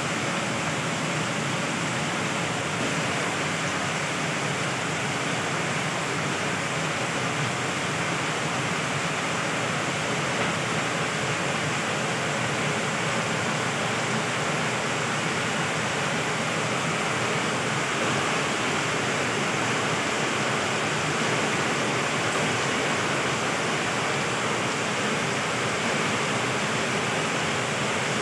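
Heavy rain pouring steadily: an even hiss of a downpour on trees and roofs that holds constant throughout.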